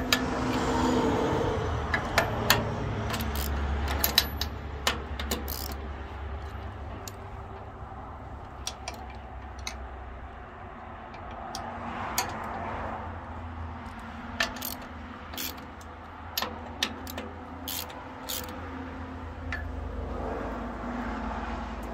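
Irregular sharp metallic clicks and clinks of a hand wrench working the blade-tracking adjustment bolts on a Thomas bandsaw mill's wheel housing. The clicks come in clusters, thickest in the first few seconds and again in the second half.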